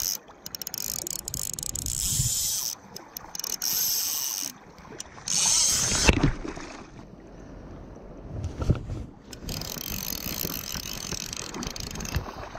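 Fly reel's click-pawl drag buzzing in several spurts as a hooked salmon runs and strips line off down to the backing, stopping about six seconds in.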